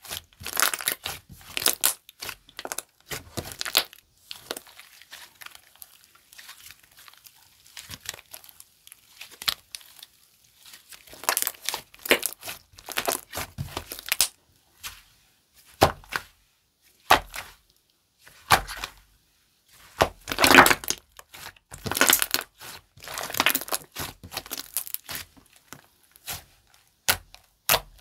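Slime being squished, stretched and pressed by hand, giving irregular bursts of crackling, popping clicks with short quiet gaps between them.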